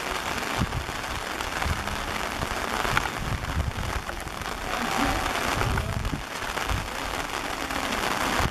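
Steady rain falling on a paved street and its puddles.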